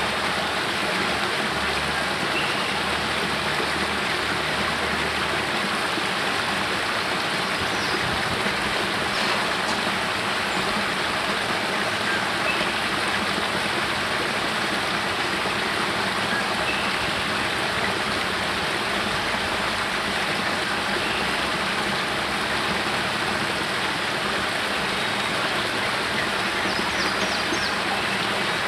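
Small spring-fed waterfall pouring out of a cave mouth and splashing over rocks into a pool: a steady, unbroken rush of water.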